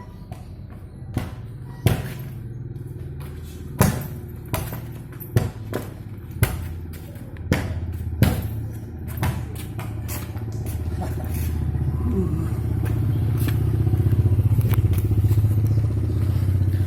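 A ball being juggled: a run of sharp thumps at uneven intervals of about a second, thinning out after the first ten seconds. Under them a low vehicle engine hum, like a motorcycle, grows louder in the second half.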